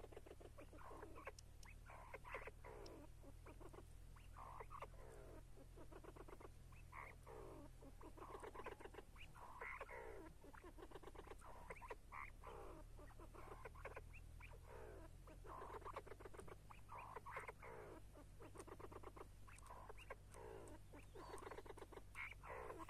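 Chukar partridge calling over and over, faint: runs of quick clucking notes repeated every second or two, over a steady low hum.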